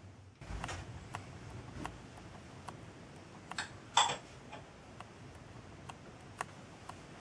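Scattered light metallic clicks and taps of hands handling a brass disc and an aluminium casting in a milling machine vice, at uneven intervals, the loudest about four seconds in.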